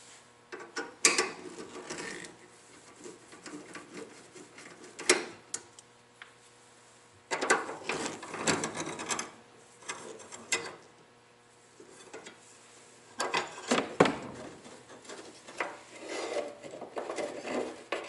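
Screwdriver backing sheet-metal screws out of a gas furnace's damper assembly: irregular stretches of rasping, scraping metal with sharp clicks, busiest in the second half.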